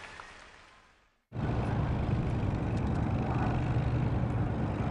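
Concert applause fading out over the first second, then a short silence. After that a steady low rumble with a hum starts abruptly and holds at an even level.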